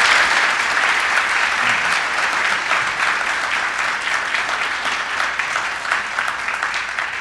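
Audience applauding, a dense steady patter of many people clapping that eases slightly toward the end.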